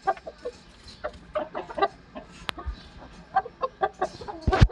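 Aseel chickens clucking, many short calls in quick succession. A sharp click comes about halfway, and a loud knock comes near the end.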